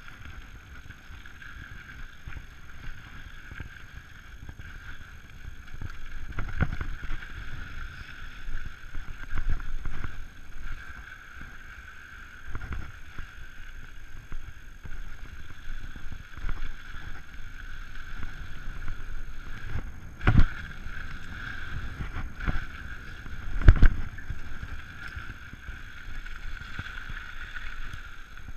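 Giant Trance 29 mountain bike descending a dirt trail: tyres rolling and crunching over the ground, bike rattling, and wind on the camera microphone. Several sharp knocks from hitting bumps, the loudest two near the last third.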